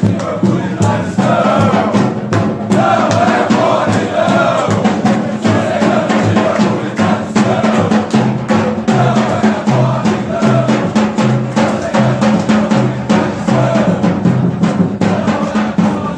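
Football supporters chanting a song together in unison over steadily beating drums.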